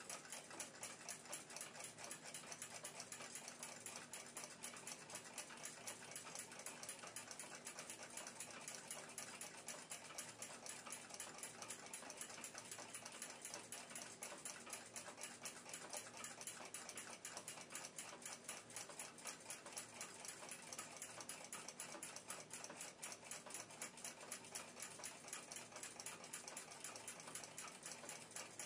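Faint, fast, steady ticking of a clock.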